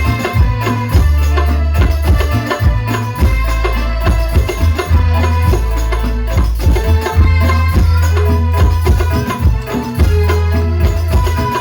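Sholawat music played loud over a sound system during a sound check, with hand drums keeping a steady beat over a heavy, deep bass.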